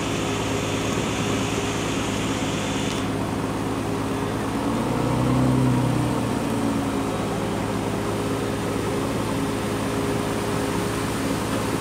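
Fishing boat's engine running steadily, a low hum that swells briefly about five seconds in.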